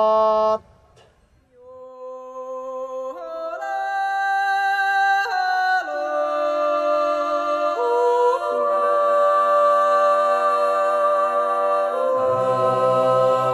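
A sung call through a wooden funnel held to the mouth ends about half a second in. Then wordless a cappella singing: several voices hold chords that shift every two or three seconds, with a low voice joining near the end.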